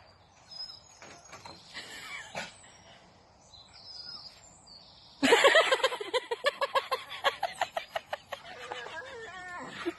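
A rapid run of short, pitched animal calls, about six a second, that starts suddenly about five seconds in. Before it there are only faint, scattered chirps.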